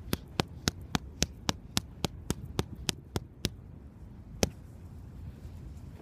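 Boxing gloves striking focus mitts in a fast, even run of about four punches a second, stopping after about three and a half seconds. About a second later comes one harder single punch.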